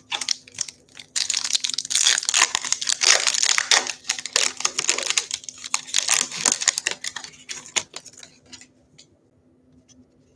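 Foil wrapper of a 2020 Bowman 1st Edition baseball card pack being torn open and crinkled in the hands: a dense run of crackling lasting several seconds, fading to a few faint rustles near the end.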